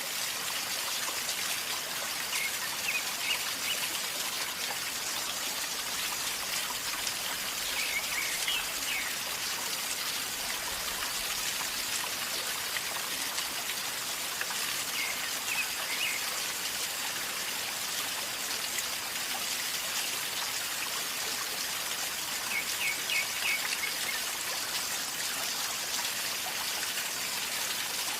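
Shallow river flowing with a steady gurgle and trickle. Brief clusters of high chirping notes come in four times, about every six or seven seconds.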